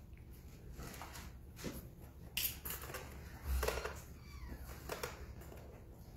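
Faint rustling and handling noises, a few short scattered rustles, as Bible pages are turned and handled, with a soft thump about three and a half seconds in.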